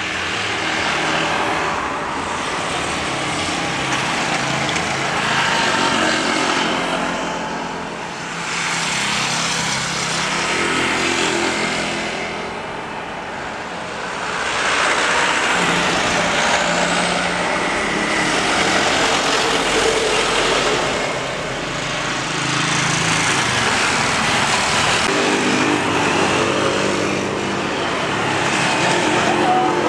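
Jet airliner engines, from an Airbus A320 touching down and rolling out on the runway: a loud, broad rushing roar that swells and eases several times.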